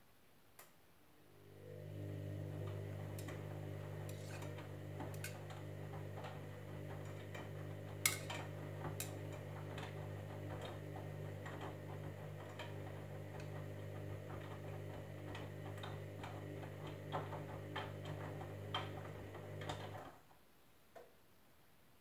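Candy Grand'O Vita front-loading washing machine tumbling the wash: the drum motor starts with a steady hum about a second and a half in, with scattered clicks and knocks from the turning drum, then stops abruptly about two seconds before the end.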